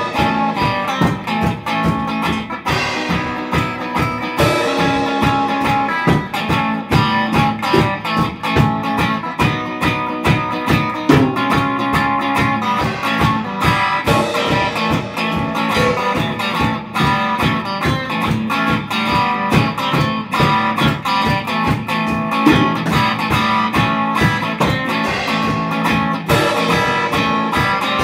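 Instrumental psychedelic rock: electric guitars playing over a steady, fast beat.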